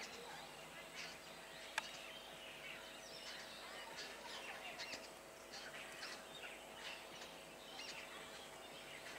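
Birds chirping and calling in many short, quick notes, faint, with a single sharp click a little under two seconds in.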